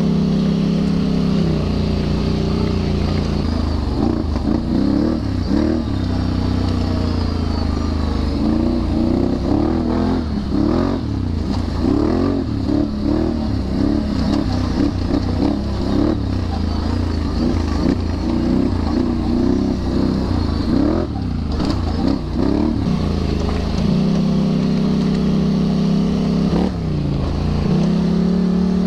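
Can-Am Renegade 1000 XXC ATV's V-twin engine under way on the trail, revved up and down in many quick throttle blips through the middle, running steadier near the start and again near the end.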